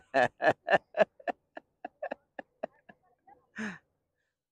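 A man laughing: a run of about a dozen short "ha" pulses, about four a second, fading away over some three seconds, then one more breathy laugh.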